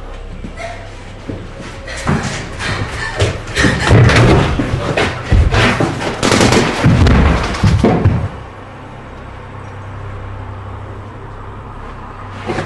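A loud, chaotic run of bangs and thuds lasting about six seconds, gunshots among them, which stops abruptly and gives way to a steady low hum.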